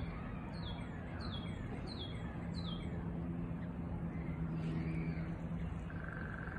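A small songbird calling: a run of short high chirps, each falling in pitch, about every two-thirds of a second over the first three seconds, then a brief buzzy trill near the end. A low steady hum runs underneath.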